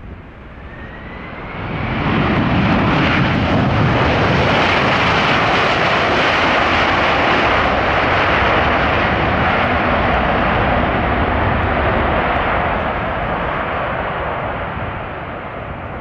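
McDonnell Douglas MD-11 freighter's three jet engines spooling up with a rising whine, then a loud, steady roar of takeoff thrust as the trijet rolls down the runway, fading as it moves away near the end.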